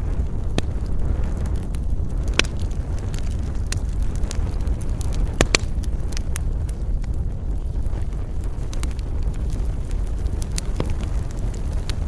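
Campfire crackling with irregular sharp pops, the loudest about two and a half and five and a half seconds in, over a steady low rumble of wind.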